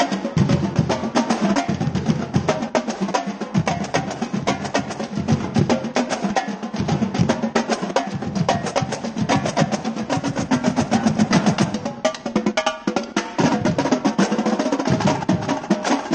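Marching drumline of snare drums and multi-drum tenor sets playing a fast, dense cadence with rolls, the strokes packed tightly throughout and briefly thinning about three quarters of the way through.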